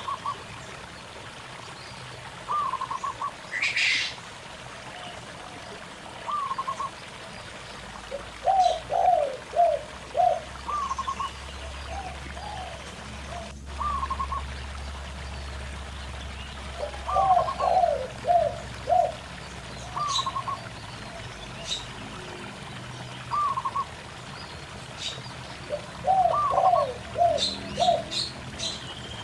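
Zebra doves and spotted doves cooing back and forth: a short call repeated every two to three seconds, answered several times by runs of four or five quicker coos, with a few brief high bird chirps. A stream trickles steadily underneath.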